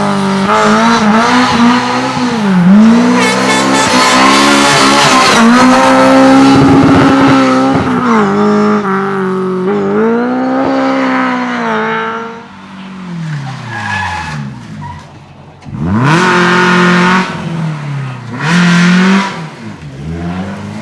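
Rally car engine revving hard, its pitch climbing and dropping again and again through gear changes and lifts. About twelve seconds in the sound falls away with sinking revs, then climbs hard again twice near the end.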